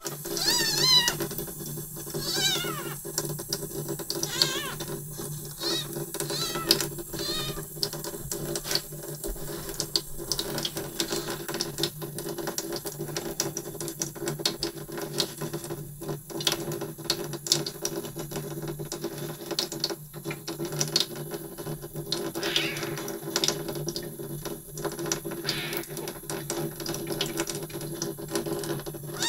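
A young kitten mewing repeatedly in high, wavering cries, most of them in the first few seconds and again later on, over tap water running steadily into a sink, with short clicks throughout.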